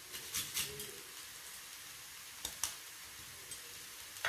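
Chickpeas frying in a pan with a soft, steady sizzle, with a couple of short scraping strokes near the start as mango ginger is grated over them on a hand grater. Two light clicks about halfway through.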